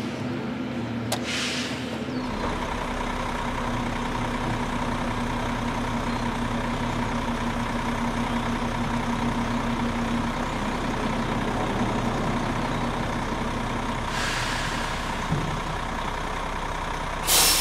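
Garbage truck running with a steady engine hum and a higher whine, while a load of trash tumbles out. Short hisses come about a second in, again around fourteen seconds, and just at the end.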